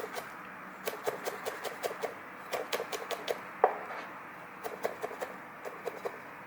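Kitchen knife chopping garlic on a cutting board: quick irregular runs of sharp knocks with short pauses between them.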